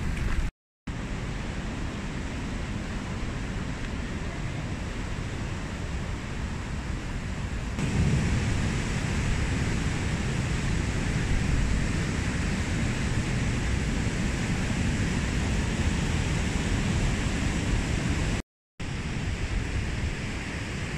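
Steady rushing noise, heaviest in the low end. It cuts out for an instant twice, once just after the start and once near the end, and is louder from about eight seconds in.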